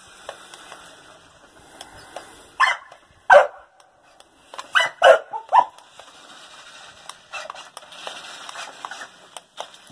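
A dog barks several times in short, sharp barks between about two and six seconds in, with quieter stretches around them.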